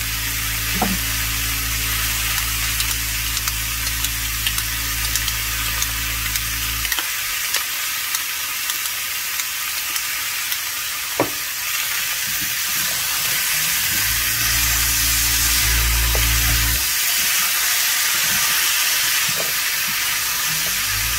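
Zucchini, yellow squash, cherry tomatoes, leeks and peppers sizzling steadily in olive oil in a skillet over medium-high heat. A spatula occasionally clicks and scrapes against the pan. A low hum stops about seven seconds in and comes back briefly later.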